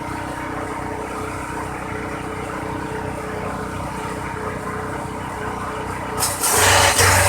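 Homemade corn-stalk chopper running steadily with its drive motor humming, then suddenly much louder and harsher about six seconds in as material is fed into the blades and shredded.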